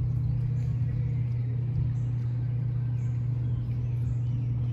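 A machine running with a steady low hum that holds unchanged throughout.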